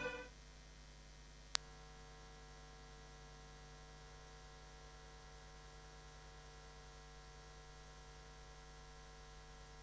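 Low, steady electrical mains hum, with a single sharp click about a second and a half in; the last of the music cuts off right at the start.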